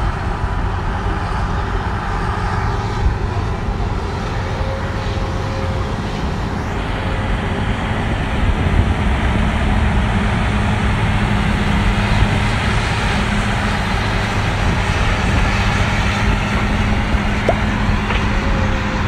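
Diesel engines of heavy earthmoving machines running steadily: a Cat 323D excavator, then a Cat 12K motor grader grading the road base. A low engine hum comes through more plainly about halfway through.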